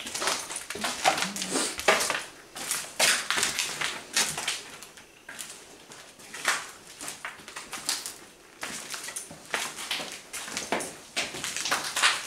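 Footsteps of people walking over a floor littered with debris: an irregular string of scuffs and crackles, one or two a second.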